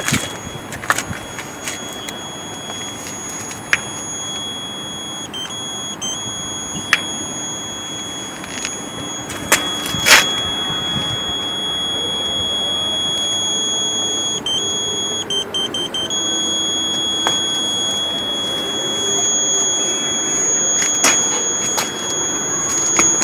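A steady, high-pitched electronic buzzer tone runs over a background of noise, with scattered small clicks and one sharp knock about ten seconds in.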